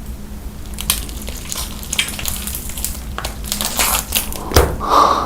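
Crunching of crisp food being bitten and chewed close to the microphone: irregular crackles and crushing clicks, with a brief louder higher sound near the end.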